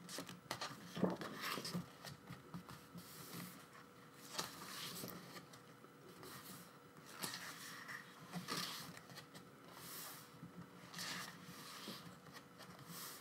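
Faint rustling and soft scraping of paper: glossy photo book pages being turned and handled, in short separate swishes with small taps between.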